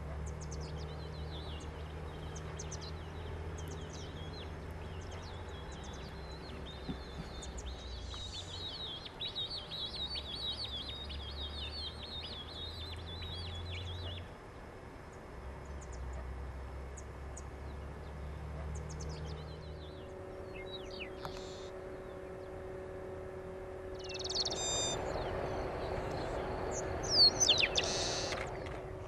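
Wild birds chirping and calling, with a dense run of chattering in the middle and a noisier burst of calls near the end, over a low steady rumble.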